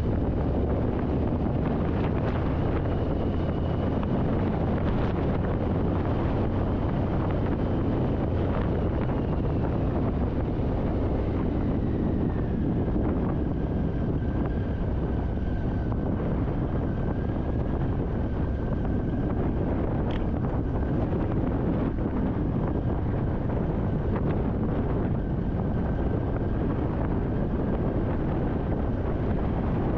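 Strong wind blowing across the microphone: a steady, loud rush with a faint whistling tone that drops in pitch about a third of the way through.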